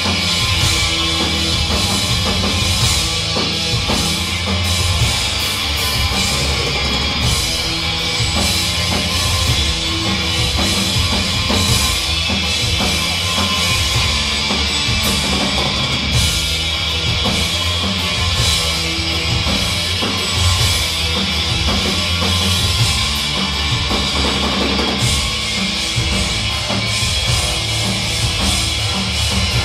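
Hardcore punk band playing live: distorted electric guitar, bass and a drum kit, loud and steady throughout.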